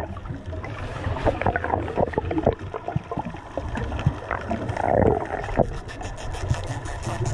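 Underwater sound around a diver catching a spiny lobster: gurgling bursts of bubbles near the start and about five seconds in, over scattered clicks and a low rumble.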